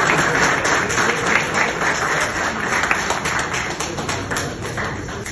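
Audience applauding with many hands clapping, dying down toward the end.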